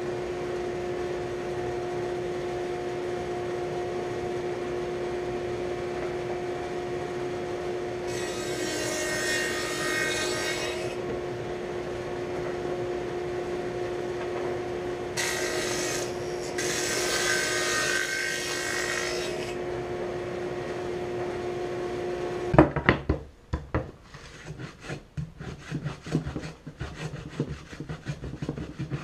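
Table saw with a dado blade running steadily, cutting a groove in plywood drawer stock about eight seconds in and in two more passes from about fifteen seconds in, each cut adding a loud hiss over the motor hum: a shallow dado cut in several passes rather than one. The saw sound stops suddenly, and a hand router plane follows, scraping wood in short irregular strokes.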